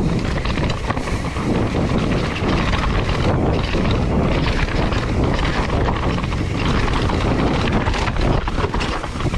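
Mountain bike riding down a rocky dirt trail: tyres on loose dirt and the bike clattering over bumps, with steady wind rush on the microphone.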